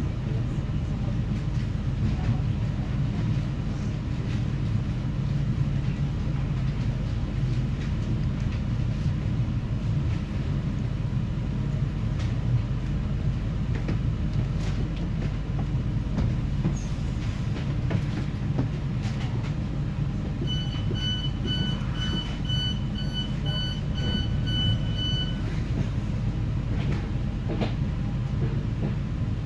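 Steady running rumble of a CFL regional express train heard from inside the carriage, wheels on rail. About two-thirds of the way through, a run of short high beeps, about two a second, lasts some five seconds.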